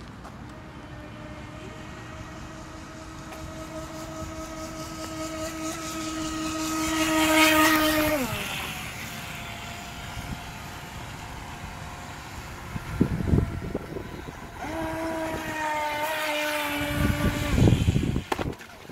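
An RC racing boat's brushless electric motor and propeller, a steady high whine that grows louder for several seconds, then drops in pitch and fades about eight seconds in. The whine comes back in the second half for a couple of seconds and drops off again. A few low bumps of noise hit the microphone near the end.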